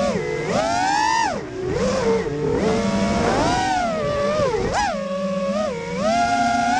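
FPV racing quadcopter's brushless motors and propellers whining, heard from the camera on the quad. The pitch keeps swooping up and down as the throttle is punched and chopped in acrobatic freestyle flying, with sharp climbs about a second in, midway and near the end.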